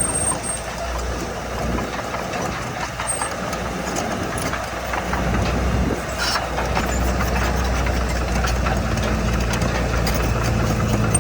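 Heavy diesel engine of earthmoving machinery running, with scattered clatter over it; the low engine note becomes steadier and louder about six seconds in.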